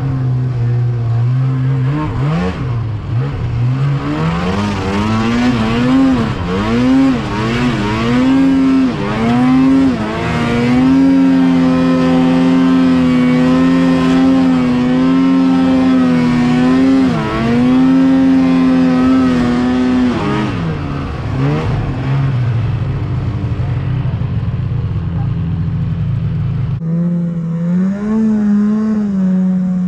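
Snowmobile engine revving hard through deep powder, its pitch climbing and dropping again and again with the throttle and held high for several seconds at a time. The sound changes abruptly near the end.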